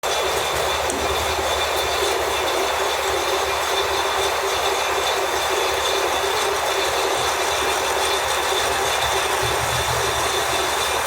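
Lathe running steadily while turning a shaft, a constant high whine over a low rumble.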